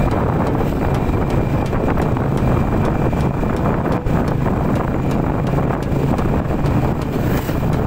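Motorcycle engine running steadily at riding speed, a low hum under heavy wind rush on the microphone.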